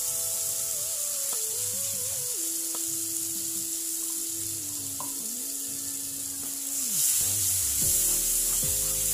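Blended turmeric spice paste sizzling as it fries in hot oil in a nonstick wok, with a spatula stirring and scraping it about two-thirds of the way in. Soft background music with long held notes plays along.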